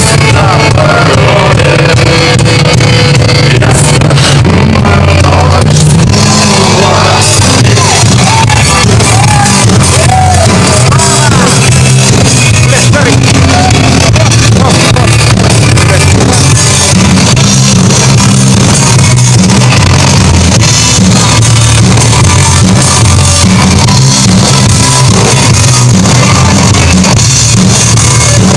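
Live rock band playing loudly, with a singer's voice over the instruments.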